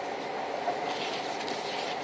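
Steady car-cabin drone of a car driving on snowy roads: engine and tyre noise running evenly.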